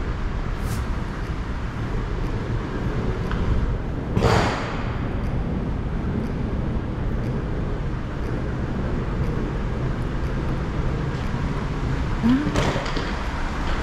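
Steady low rumble of background vehicle traffic, with a loud brief whoosh about four seconds in and a short rising tone near the end.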